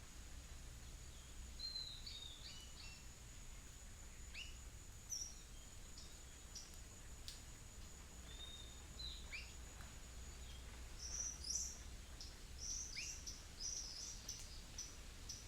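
Several wild birds giving short, sharp chirps and calls, scattered at first and busier from about eleven seconds in. A thin, steady high whine runs underneath and stops at about ten seconds.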